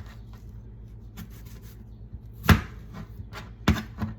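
Kitchen knife chopping red-skinned potatoes on a cutting board: a few irregular sharp knocks of the blade hitting the board, the loudest about two and a half seconds in and two more close together near the end.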